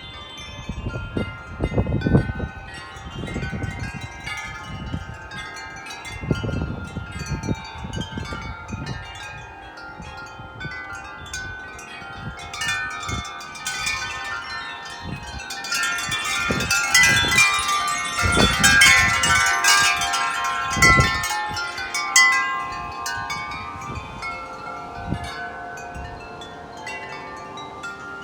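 Wind chimes ringing without a break in strong, gusting wind, many tones clanging over one another, busiest and loudest about two-thirds of the way through. Gusts buffet the microphone with low rumbles, strongest near the start and around the loudest stretch.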